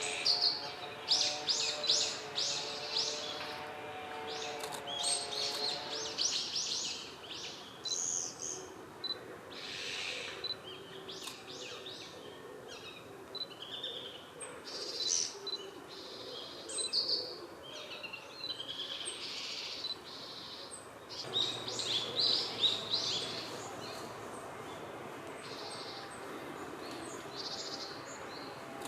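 Male Japanese sparrowhawk calling in bouts of rapid, high, sharp notes, several times over, calling for the female to come for the prey he has caught.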